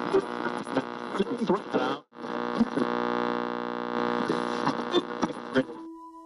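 Old-television glitch effect: an electrical buzz-hum with crackles of static and snatches of garbled, distorted voice. It cuts out suddenly about two seconds in, comes back steady, and gives way to a single steady tone near the end.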